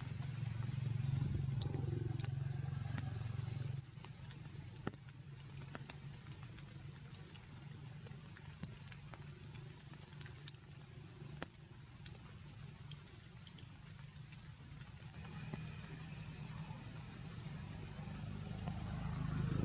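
Rain falling, with scattered drops tapping. A low steady engine-like hum cuts off sharply about four seconds in and builds back gradually near the end.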